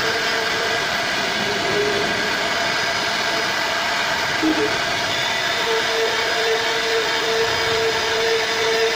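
CNC router spindle running with its carving bit cutting relief into solid wood: a steady machine whine over the noise of the cut, one tone growing stronger a little past halfway.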